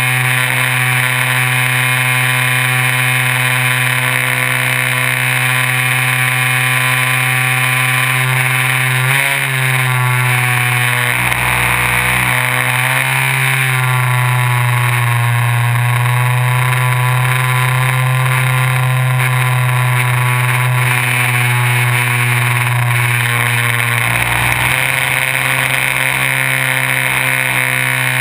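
Electric motor and propeller of a FunCub RC airplane, heard from a camera on board: a steady motor whine over wind hiss, its pitch dipping and rising again a few times as the throttle changes.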